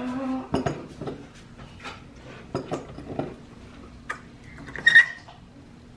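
Metal screw clamps being set and tightened on a bass neck: a series of light clicks and knocks of clamp screws and jaws, with a louder, short high-pitched sound about five seconds in.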